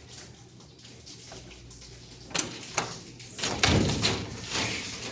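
Screen door pulled shut by a pneumatic door closer: a couple of light clicks, then a loud knock as the door hits the frame about three and a half seconds in, with a short rattle after. The closer's air valve has just been adjusted so the door closes fully.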